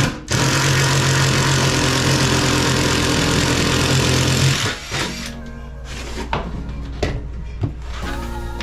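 A power tool's motor runs loudly for about four seconds and then stops, followed by a few knocks, with background music throughout.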